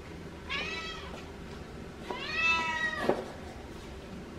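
Domestic cat meowing twice, a short meow and then a longer one that rises and falls, urging its owner to hand over the bowl of wet food.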